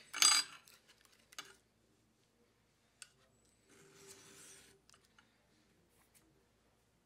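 A small steel rear sight rubbed across a flat file in one rasping pass about four seconds in, taking material off its base so it will fit the slide's dovetail. Around it are small metallic clicks and a sharper metal clack near the start.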